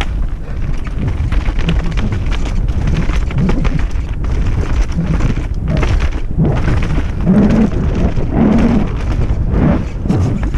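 Wind rushing and buffeting over a helmet-mounted camera's microphone during a fast descent, with a constant low rumble and rattling knocks as the bike runs over rough ground.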